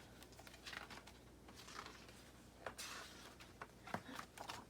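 Faint rustling and light taps of a picture book being shaken and handled.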